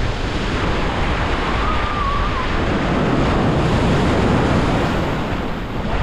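Atlantic Ocean surf breaking and washing up the beach, swelling louder in the middle, with wind buffeting the microphone as a low rumble underneath.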